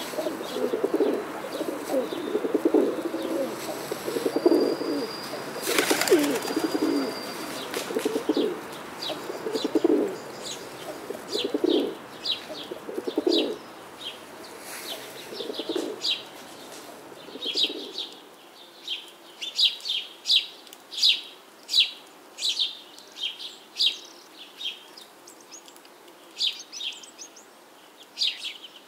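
Birdsong: a dove cooing in repeated low phrases through the first half, with a brief rustle about six seconds in, then small birds chirping in quick, high notes for the rest.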